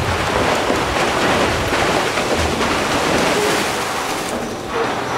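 Food waste pouring from a tipped container into a steel hopper: a loud, steady rushing noise that dips briefly near the end.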